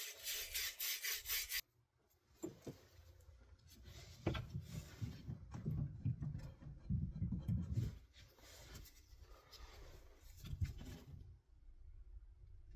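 Abrasive scrubbing of copper pipe and fittings to clean them before soldering. Quick scraping strokes come first, then a short break, then slower, rougher rubbing.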